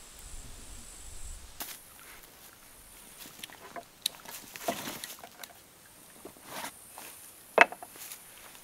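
Rustling and scattered light clicks of gear being rummaged in a canvas backpack, with one sharp click near the end.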